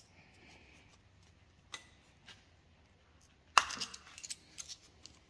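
Scattered sharp metallic clicks and scrapes from a small hand tool's steel tip prying at a worn seal lodged deep in the steel gland of a hydraulic cylinder. The loudest click comes about three and a half seconds in, followed by a quick cluster of lighter ones.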